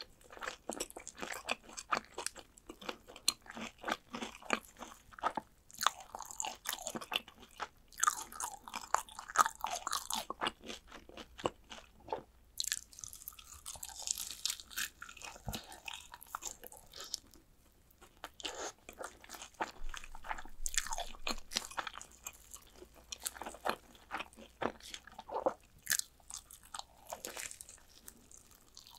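Close-up crunching and chewing of Korean fried chicken drumsticks: crisp batter cracking in many irregular bites, with wet chewing between them.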